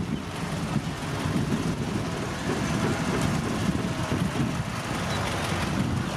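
Heavy diesel earthmoving machinery running steadily, a dense low rumble.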